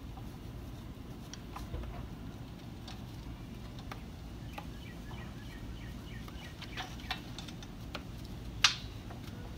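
Small detailing brush scrubbing inside a car wheel, around the spokes and brake caliper: scattered light clicks and taps as it knocks against the wheel, the sharpest one near the end, over a steady low rumble.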